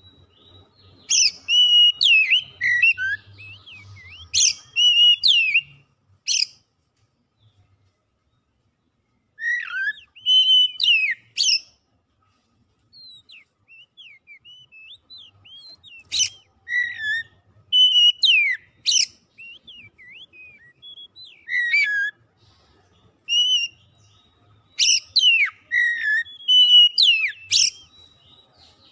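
Oriental magpie-robin singing: phrases of clear whistled notes and quick chirps, each a few seconds long, with short pauses between them.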